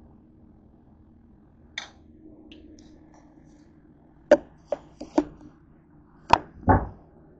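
A series of sharp knocks and clatters from things being handled and set down on a kitchen counter by the sink. There is a single click a couple of seconds in, then five quick knocks over about two seconds, ending in a duller thump.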